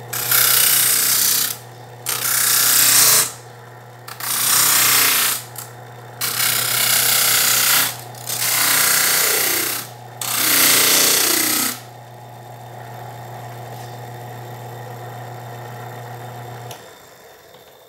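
Shop-made belt-driven disc sander running with a steady hum while a thin wooden strip is pressed against the abrasive disc six times, each pass a loud grinding rasp of about a second and a half, roughing the strip down. The hum runs on alone afterwards and stops near the end.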